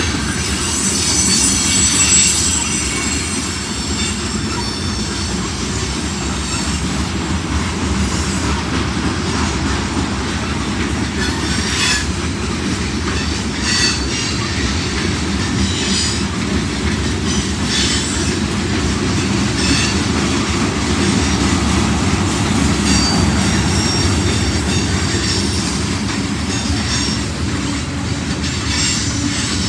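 Freight train cars rolling past with a continuous rumble of wheels on rail, broken by high wheel squeals that come and go and by sharp clicks as the wheels cross rail joints.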